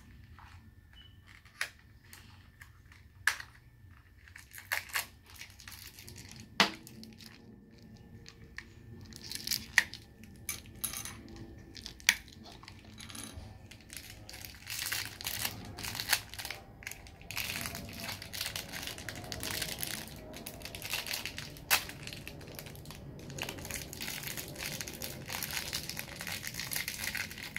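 Toy packaging being opened by hand: a plastic surprise ball and its small foil or cellophane wrappers. There are sharp clicks and snaps of plastic now and then in the first half, and from about halfway on a steadier crinkling as a small wrapper is peeled open.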